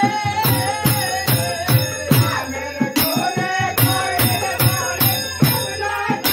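Kirtan: a devotional Hari-nam chant sung to a khol drum, with bell-metal percussion struck on the beat about two and a half times a second.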